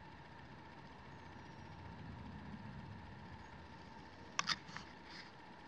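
Faint room tone with a thin, steady whine, broken near the end by a quick cluster of light clicks.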